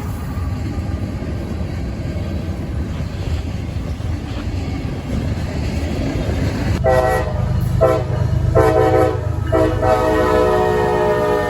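Diesel locomotive engine rumbling steadily. About seven seconds in, the locomotive's multi-note air horn sounds three short blasts and then a long one that is still sounding at the end.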